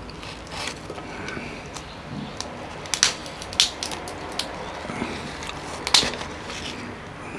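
Cooked king crab being torn apart by hand: the spiky shell cracks in sharp snaps as the legs are broken off and the meat is pulled out. The loudest snaps come about three seconds in and again about six seconds in, with smaller clicks between.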